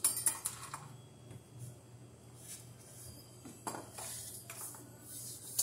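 Scattered light metallic clicks and clinks of wires and a metal electrical outlet box being handled. There is a cluster at the start and a few single clicks later on, the last one sharp.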